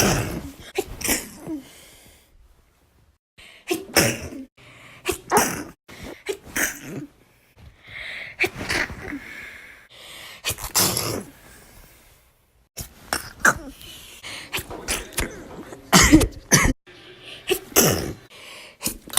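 A sneezing fit: one person sneezing again and again in quick runs of sharp bursts, with brief pauses of a second or so between runs.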